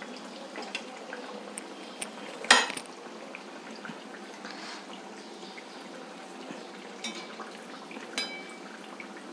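Rice-and-banana appams deep-frying in a kadai of oil kept on a low flame, a steady soft bubbling sizzle. A steel perforated ladle clinks sharply against the pan about two and a half seconds in, with a few lighter metal taps later.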